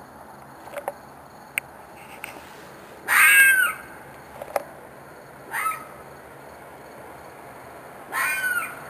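An animal's harsh screeching call, repeated three times about two and a half seconds apart, each call falling in pitch; the first, about three seconds in, is the loudest and longest. A few faint short chirps come between the calls. The recordist takes it for a fox or coyote that seems to be in distress.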